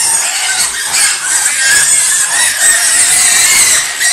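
A crowd of young piglets squealing without a break, many high-pitched squeals overlapping as they push and jostle over their starter feed.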